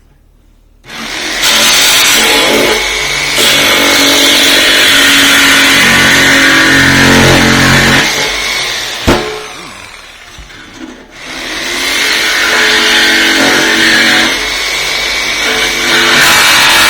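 TackLife jigsaw cutting through a steel barrel lid, its motor running and blade rasping through the metal as the hole's edge is trimmed. It starts about a second in, drops away around the middle with a sharp click, then picks up and cuts again.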